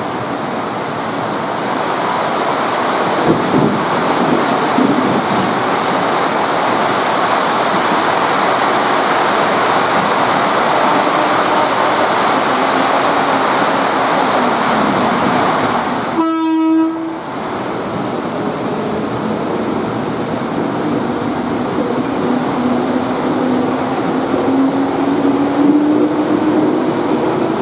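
Electric commuter train in pouring rain, the rain's hiss running through it all. About 16 seconds in comes a short horn note. Near the end the motors give a rising whine as the train picks up speed pulling away.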